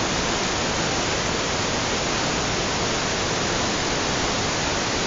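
Whitewater rapids of the Pemigewasset River at Livermore Falls, running high in flood after Tropical Storm Irene: a loud, steady rush of water with no let-up.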